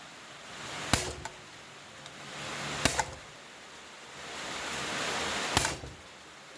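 Hammer blows on a seized, rusted engine part to drive it loose: three sharp metallic strikes about two seconds apart, some ringing briefly. A rushing hiss rises and falls between the blows.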